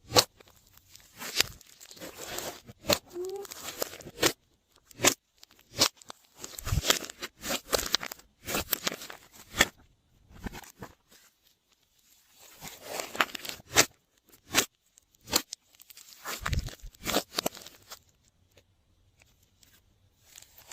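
Glossy slime being worked by hand, with sharp sticky pops and stretches of crackling squelch. It goes quieter near the end.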